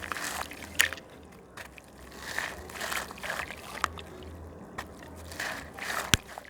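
A gritty slab crumbling in water: bursts of crunching and sloshing, with a few sharp cracks, the loudest near the end.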